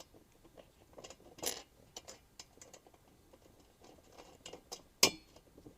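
Light clicks and scratches of small metal cart hardware being handled as a bolt is put on by hand, with a louder click about a second and a half in and a sharp click about five seconds in.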